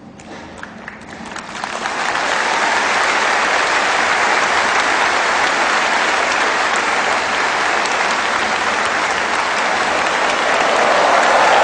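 Audience applause: a few scattered claps at first, swelling within about two seconds into dense, steady clapping.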